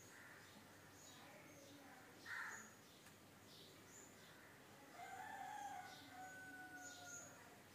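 Faint rooster crowing once, a long call about five seconds in that ends on a held, slightly falling note. Small birds chirp throughout, and a short sharp call comes about two seconds in.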